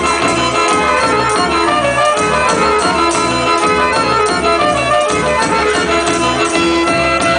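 Southern Serbian folk dance music, from the Vranje region, with a steady, even beat and a sustained melody. The dancers shake and strike hand-held frame tambourines with jingles in time with it.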